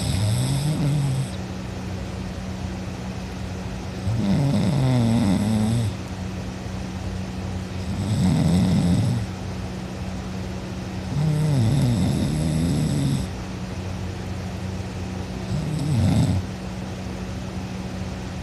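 A person snoring loudly in his sleep: five snores, each lasting one to two seconds and coming about every four seconds, with a wavering pitch. A steady low hum lies underneath.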